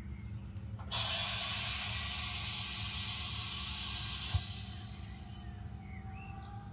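DAF XG+ truck's air suspension hissing as air passes through the valves to change the chassis height. The hiss starts suddenly about a second in, holds steady, then stops with a click and fades out in a fainter hiss.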